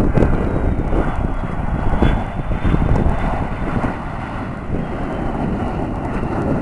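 McDonnell Douglas MD-80's rear-mounted Pratt & Whitney JT8D jet engines running, with a faint high whine that slowly falls in pitch. Heavy wind buffeting on the microphone sits underneath.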